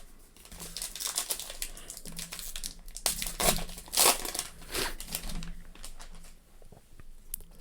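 Foil wrapper of a trading card pack crinkling and tearing as it is opened by hand, irregular crackles with louder rips about three and four seconds in.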